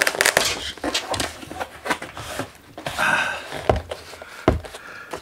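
A cardboard presentation box being opened by hand: the lid scrapes and rubs as it comes off, with scattered soft knocks and a hissing slide about three seconds in, then two low thumps about a second apart.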